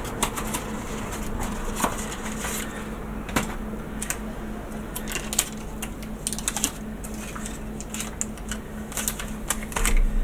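Irregular light clicks and taps of hands working packing material around a small plastic model part to build a mould, over a steady low hum.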